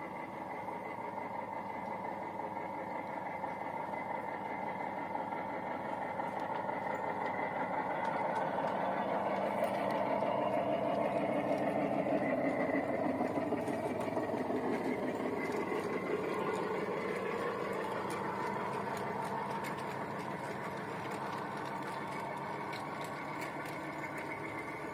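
A 5-inch gauge miniature locomotive and its train of carriages running past on the track: a steady mechanical running and rattling that grows louder as it approaches, is loudest about halfway through, and fades as it moves away.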